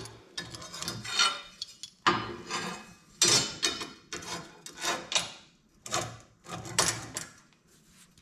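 A string of uneven metallic clanks and scrapes, roughly one or two a second, as a steel blade and its clamp are handled and shifted between sharpening passes. No grinder is running.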